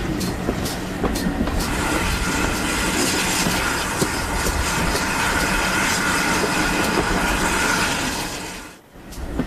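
Heritage railway train running on the line, its wheels clicking regularly over the rail joints at first, then a steady rushing noise with a held ringing tone. The sound drops away abruptly for a moment near the end.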